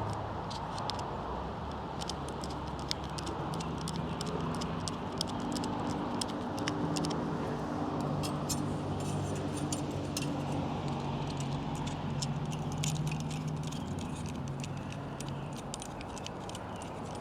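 Large worm-drive hose clamp being screwed down, a long run of small metallic ticks and clicks as the screw turns and the band feeds through. A steady low hum sits underneath.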